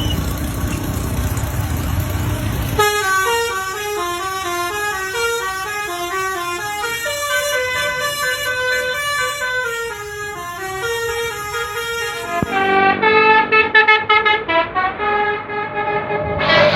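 Indonesian bus 'basuri' telolet horn playing a melody of several tones stepping up and down, after a few seconds of low engine and road rumble. Near the end it turns louder, with a fresh burst of horn tones.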